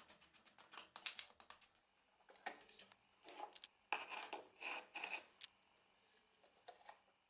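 Hand wire brush scrubbing a rusty forged hammer head in rapid back-and-forth strokes, then a few separate metal scrapes and clinks.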